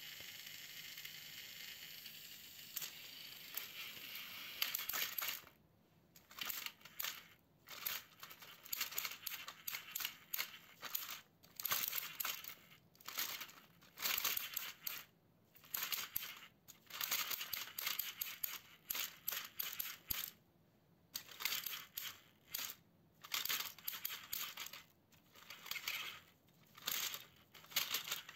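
Battery-powered Plarail toy train (a Diesel 10 engine pulling Toby) running on plastic track: a steady motor whir for the first few seconds, then irregular clattering and clicking with short pauses between the bursts.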